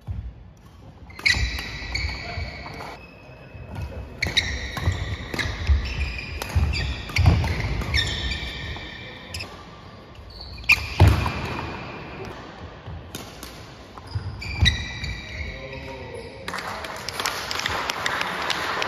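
Badminton doubles rally: rubber-soled court shoes squeaking on a wooden sports-hall floor, thudding footfalls and sharp racket strikes on the shuttlecock, all echoing in the hall. About three seconds before the end the rally stops and steady applause takes over.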